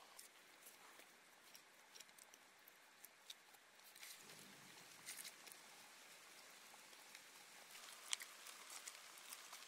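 Faint patting and small clicks of bare hands working wet mud, pressing it onto an earth wall and scooping more from a wheelbarrow. The sharpest click comes about eight seconds in.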